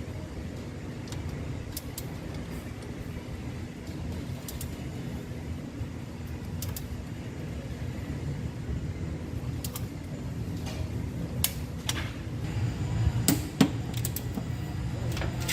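Wrench clicks from cylinder head bolts being torqued down in stages: scattered sharp clicks, more frequent in the second half, over a steady low rumble.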